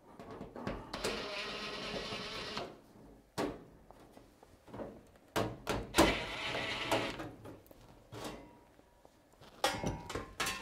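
A DeWalt 20V cordless driver runs twice, each time for a second or two, backing screws out of the sheet-metal duct collar on a stainless range hood. Short metal clinks fall between the runs, and there is a clatter of sheet metal near the end as the collar comes off.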